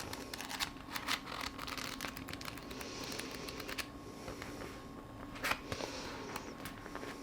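Handling of a novel: quick rustles and light clicks as its pages are flicked through, busiest in the first two seconds, with one sharper click later on.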